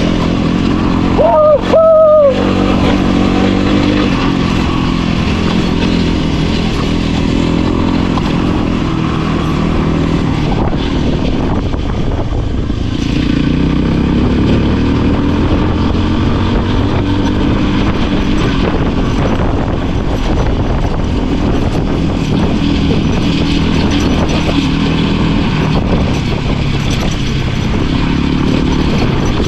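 Voge 300 Rally's single-cylinder engine running under way as the dual-sport motorcycle rides over loose rocks, its revs rising and falling as the rider works the throttle. A brief loud sound rising and falling in pitch comes about two seconds in.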